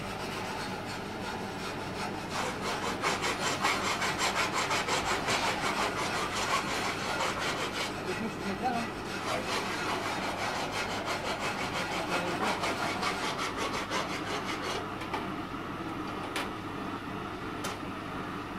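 Oxy-fuel gas torch flame burning with a steady hiss while a clamped metal bar is heated, over a fast, even rasping pulse that thins out about fourteen seconds in.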